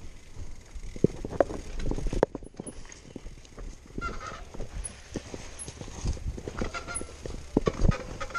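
Mountain bike rolling over a rough dirt trail: irregular knocks and rattles from the frame and handlebar-mounted camera jolting over bumps and roots, over a low rumble.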